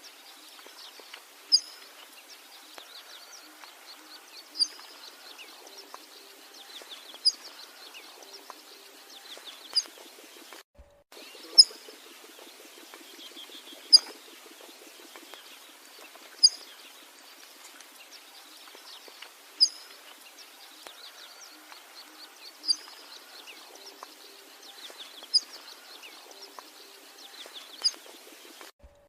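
Bengal florican call: a short, sharp, high note repeated about every two and a half to three seconds, over steady softer chirping of other birds or insects. The sound drops out for a split second twice.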